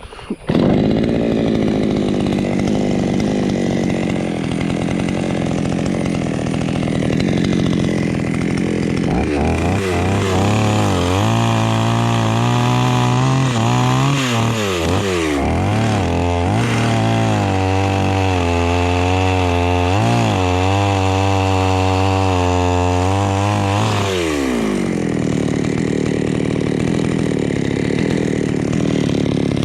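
Two-stroke chainsaw running loud, starting abruptly just after the start. From about nine seconds in it cuts through jackfruit wood, its engine pitch dipping and recovering again and again under the load of the cut. The pitch falls away near the end as the throttle eases.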